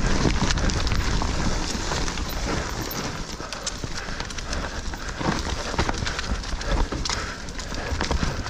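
YT mountain bike riding fast down a dirt woodland trail: tyres rumbling over the ground, with the frame and chain rattling and irregular sharp knocks as it hits roots and bumps.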